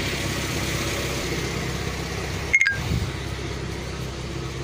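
The Mitsubishi 2.6-litre four-cylinder engine of a 1981 Plymouth Reliant K wagon idling steadily, with a short sharp click about two and a half seconds in.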